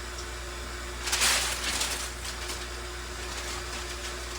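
Paper packaging around a pane of glass rustling and crinkling as it is handled and pulled away, in a few short bursts, the loudest about a second in. A steady low electrical hum runs underneath.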